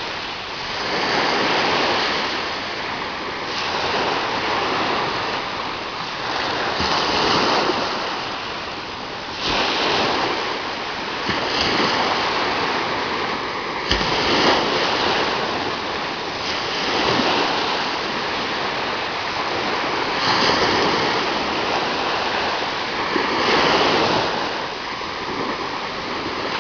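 Ocean surf breaking on a beach: a continuous rush of water that swells as each wave crashes every few seconds and then washes back.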